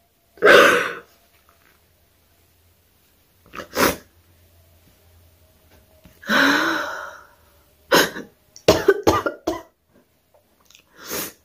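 A woman crying, sobbing and coughing in separate bursts: a loud burst about half a second in, a longer cry a little past halfway, then a quick run of short sobs and catches of breath.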